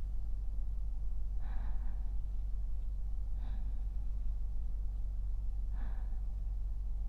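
A man's slow sleeping breaths, close to the microphone: three soft breaths about two seconds apart over a steady low hum.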